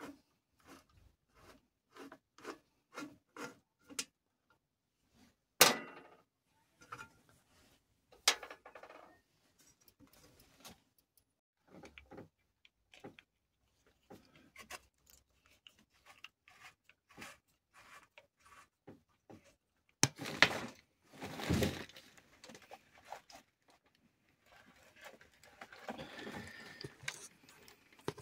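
A screwdriver working on the screws of an old three-phase induction motor's metal end cover: a run of even clicks, about two a second, as a screw is turned. Then come single sharp metal knocks, a louder clatter of metal parts past the middle, and scraping near the end.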